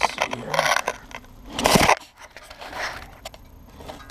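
Wood gasifier's shaker grate being rocked back and forth inside the steel vessel: irregular crunching and scraping, loudest just under two seconds in.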